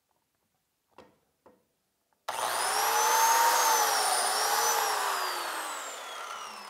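Biscuit joiner cutting a slot in hardwood. After two light handling clicks, the motor starts abruptly about two seconds in with a rising whine. The pitch sags briefly as the blade plunges into the wood, then falls steadily as the joiner is switched off and spins down.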